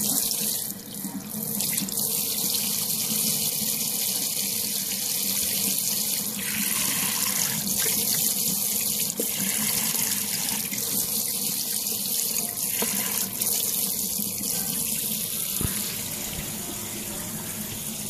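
Tap water running steadily into a sink, a continuous splashing hiss.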